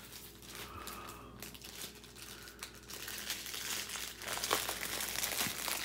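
Plastic packaging of a diamond painting kit crinkling as it is handled: the strip of bagged drills and the canvas in its plastic. It crackles on and off, fuller and louder in the second half.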